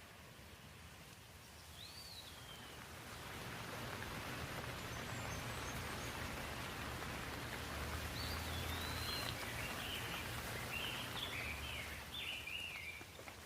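Steady rain falling, its hiss swelling over the first few seconds and then holding, with a low rumble underneath. A bird chirps once about two seconds in and again in a run of short calls in the second half.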